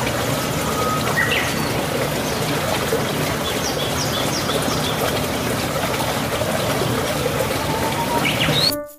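Heavy rain falling steadily on the water and grass, a constant even hiss, with a few faint bird chirps.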